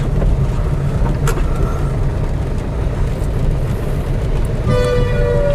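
Steady low rumble of road and engine noise inside a Ford hatchback's cabin, driving in heavy rain with the wipers going. A single click about a second in, and background music with a held tone comes in near the end.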